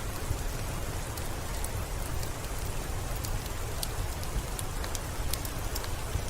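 Steady rain falling: an even hiss with a low rumble beneath it and scattered sharp ticks of single drops.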